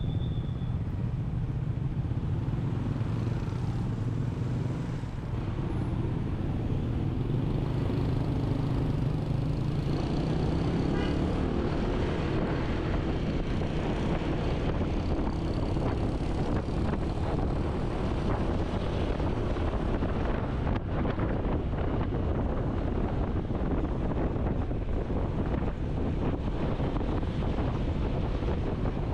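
Steady noise of a motor vehicle travelling along a road, with engine and traffic sounds.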